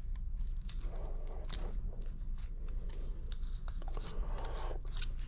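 Feeler gauge blades clicking and scraping as they are picked out and slid between the cam lobes and valve buckets to measure valve clearances on a Peugeot 205 GTI cylinder head. The small metal clicks come irregularly over a steady low hum.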